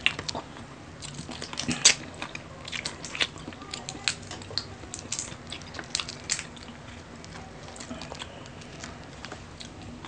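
Close-up eating sounds of a seafood meal: irregular chewing and biting with small crunches and clicks, one sharper click about two seconds in.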